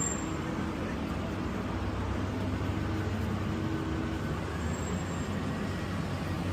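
Steady low hum of street noise, with a faint droning tone running through it.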